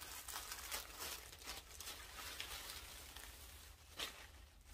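Packaging rustling and crinkling in irregular faint crackles as a folded t-shirt is unwrapped and shaken out, with one sharper crackle about four seconds in.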